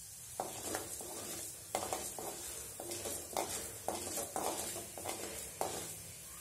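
Wooden spatula scraping and stirring urad dal and chana dal in hot oil in a metal kadai: about a dozen short strokes, roughly two a second, from about half a second in until near the end. Under the strokes the oil sizzles lightly.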